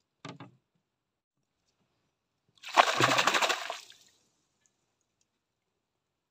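A fish thrashing at the water's surface: a loud burst of rapid splashing lasting about a second and a half, beginning a little before the middle.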